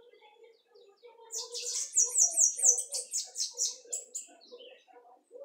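Bananaquit (sibite) singing: a high, fast run of short downslurred notes lasting about three seconds, starting about a second in.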